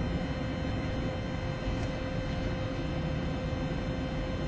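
Electric car with a manual gearbox cruising at about 40 mph in third gear, heard from inside: steady road and tyre noise with a faint steady whine, the motor held near 4,700 rpm under a light, even load of about 100 amps.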